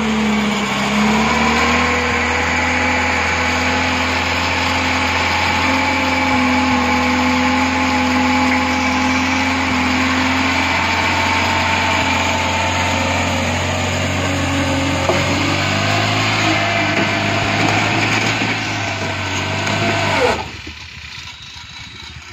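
Petrol engine of a three-wheeled cargo tricycle running hard and steady to tip its dump bed full of firewood. About twenty seconds in the sound drops away sharply to a quiet running level as the bed reaches its tilt.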